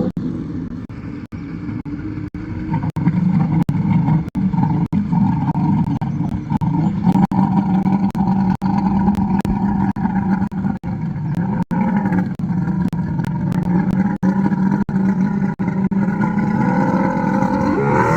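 Jet boat engine running steadily at an even pitch, cut by brief short gaps.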